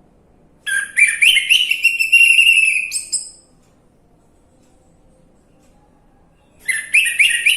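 Orange-headed thrush song: two loud whistled phrases. The first starts about a second in and runs nearly three seconds, quick rising notes followed by a long warbled note. The second phrase begins near the end.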